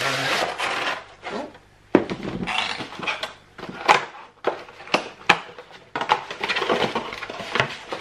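Cardboard packaging being handled: rustling and scraping as a small cardboard box is slid out of a larger carton, with several sharp knocks.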